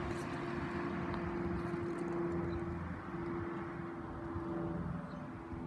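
Cessna 172's piston engine and propeller droning steadily overhead on approach.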